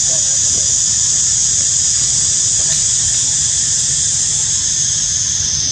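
Cicada chorus: a steady, high-pitched buzz that never lets up, over a low rumble.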